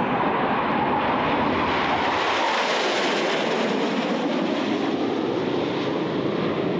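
Jet engine roar from a formation of Sukhoi Su-27 fighters flying past: a steady, dense rush of noise that brightens and swells about three seconds in, then eases back.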